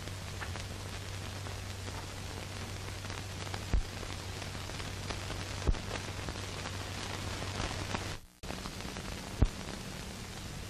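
Surface noise of an old film soundtrack: steady hiss and crackle over a low hum, with three sharp pops and a brief dropout about eight seconds in, after which the hum sits a little higher.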